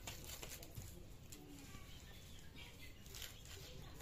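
Fish being cut and pulled apart by hand against a boti, the upright curved kitchen blade: a few faint scrapes, ticks and soft wet handling sounds over a quiet background.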